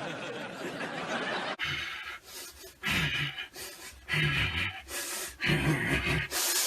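A person's voice in a few short breathy gasps, a little over a second apart, after a steady hiss that cuts off suddenly about a second and a half in.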